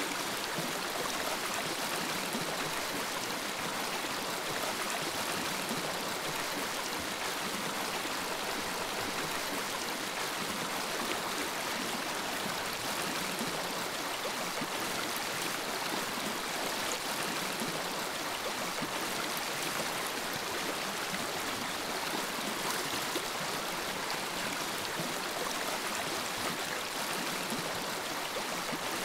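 Steady hiss of a lampworking bench torch flame.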